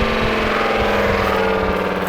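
Home-reworked electric air raid siren sounding a chord of several tones, all sliding slowly lower as the rotor winds down. The stator ports are unevenly spaced, which gives it a rough, granulator-like sound.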